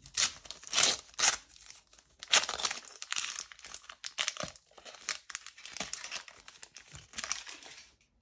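A foil trading-card pack being torn open and crinkled by hand: irregular crackling and ripping of the wrapper, loudest in the first three seconds, then quieter rustling as the cards are drawn out.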